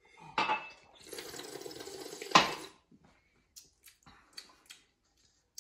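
Milk being slurped and swished noisily in the mouth, air drawn through it in the wine-tasting manner, a wet gurgle lasting about two seconds. It is followed by a few light clicks, like glasses set down on a countertop.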